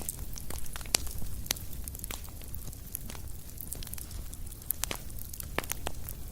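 Crackling fire: irregular sharp pops and snaps, several a second, over a steady low rumble.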